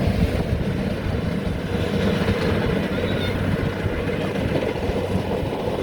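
Combine harvester engine running steadily, a continuous low rumble.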